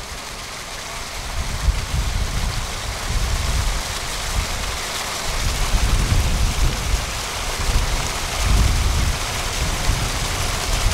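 Water pumped out of the culvert rushing and splashing steadily, with uneven low rumbling buffets underneath.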